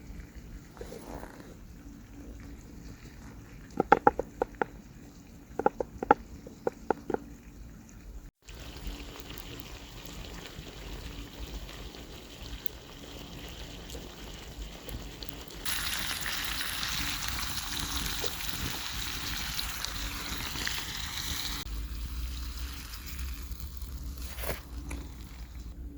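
Cooking in a cast iron skillet over a campfire: a run of sharp clicks, then, after a cut, a steady sizzling hiss that grows louder for about six seconds and stops abruptly.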